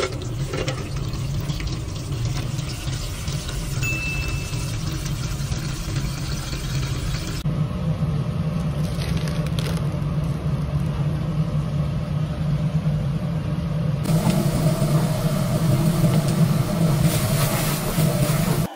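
Tap water running steadily into a stainless-steel container and then over sliced meat in a steel bowl, over a steady low rumble. The sound shifts abruptly twice.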